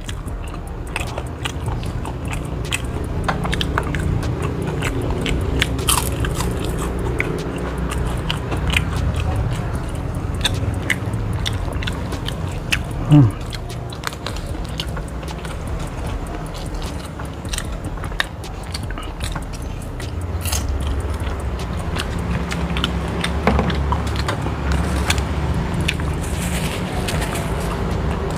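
Close-up mukbang eating: a person biting and chewing fried chicken and fried catfish with rice, eaten by hand, with many small clicks throughout. A brief louder low sound comes near the middle.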